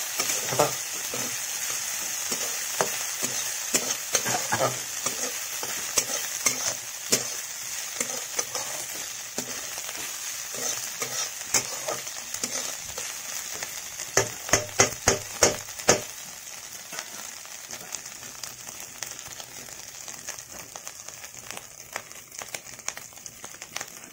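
Dried fish sizzling steadily in hot oil in a steel kadhai, with a metal spatula scraping and clicking against the pan as it is stirred. About two-thirds of the way through comes a quick run of about six sharp knocks of the spatula on the pan, and the sizzle dies down toward the end.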